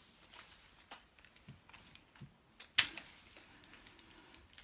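Handling noise of a wooden cross-stitch scroll frame being unrolled: soft rustling of linen fabric and light scattered clicks, with one sharp clack a little under three seconds in.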